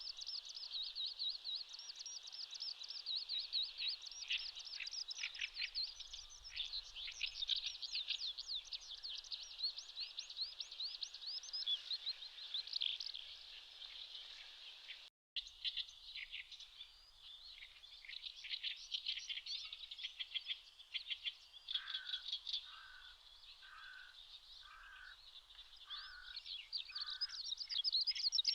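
Eurasian skylark singing its long, unbroken song: a rapid, tumbling stream of high trills and chirps that breaks off for an instant about halfway. In the last third, six lower notes repeated at an even pace sound beneath it.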